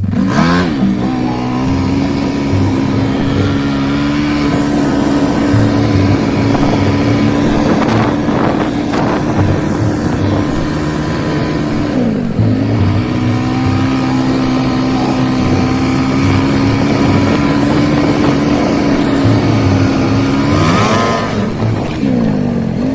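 A motor vehicle engine running at steady high revs. Its pitch dips and climbs back again three times, over a loud rushing noise.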